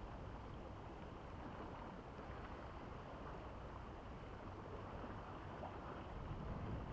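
Steady wind rumbling on the microphone over the wash of small sea waves against shoreline rocks.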